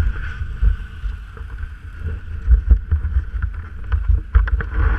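A BRP off-road vehicle's engine running under way, with an uneven low rumble and scattered knocks, and wind buffeting the microphone.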